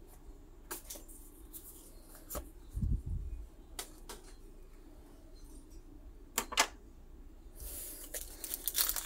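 Scattered light clicks and taps of trading cards being handled and set down on a playmat, with a soft low thump about three seconds in. Near the end comes a growing crinkle of plastic and foil as a blister pack is picked up.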